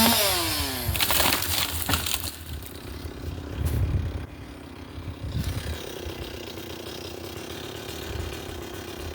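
Chainsaw dropping from cutting speed to idle, then a boxelder tree cracking and crashing down, with a heavy low thud about four seconds in. The chainsaw then idles steadily.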